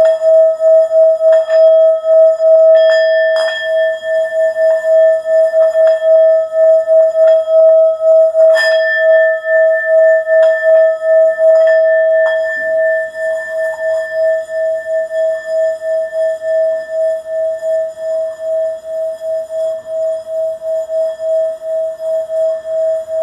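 Singing bowl ringing with one steady tone that pulses evenly in loudness, as when the rim is rubbed with a mallet. Several light knocks, a few seconds apart in the first half, bring out higher ringing overtones, which die away about halfway through.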